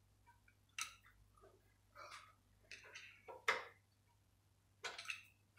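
Star-wheel adjuster of a Citroen Relay's handbrake shoes, clicked round a notch at a time by a screwdriver through the rear brake disc to slacken the shoes. A few faint, irregular clicks, the loudest about three and a half seconds in.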